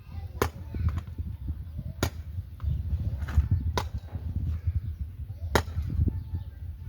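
Four sharp chopping blows, evenly spaced about a second and a half apart, over a low steady rumble.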